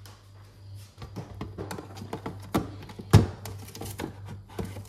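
Plastic food-storage containers and jars knocked and set down on the shelves of an open refrigerator: a string of clicks and clatters, the loudest a knock about three seconds in, over a low steady hum.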